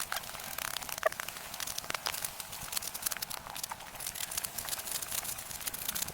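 Steady rustling and crackling made of many small, quick clicks, with no voice or engine.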